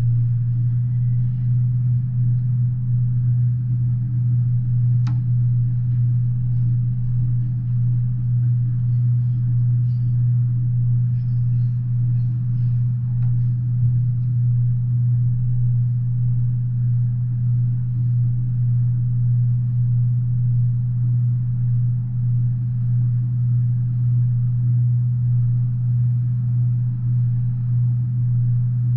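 Double-stack intermodal container train rolling past at steady speed, its cars on the rails making a constant low rumble, heard from indoors through a window.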